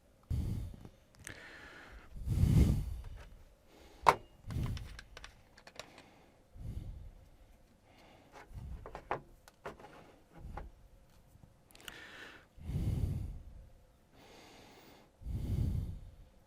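Heavy breathing close to the microphone, with a puff every two to three seconds, mixed with small clicks and knocks of parts being handled. The sharpest click comes about four seconds in.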